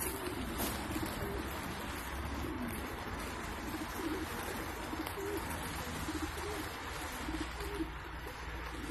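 Many racing pigeons cooing in their transport crates, the low coos overlapping again and again, over a steady rush of water from a hose filling their drinkers.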